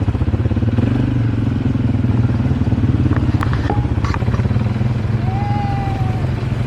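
Small motor vehicle engine running steadily close by, with a fast, even rattle. A few sharp clicks come about three to four seconds in.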